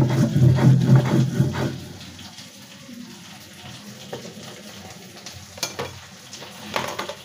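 Stone roller of a shil-pata grinding stone rubbed over the slab, grinding dried chillies, onion, garlic and salt into a paste: rough rubbing strokes for about the first two seconds, then quieter, with two sharp knocks near the end.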